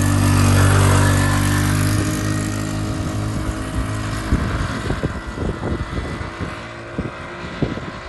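Tao Motor Baja 200 Sport go-kart's GY6 169cc single-cylinder engine running as the kart pulls past close by and drives away, its steady engine note loudest about a second in and fading as it goes. Irregular crackles come through in the second half.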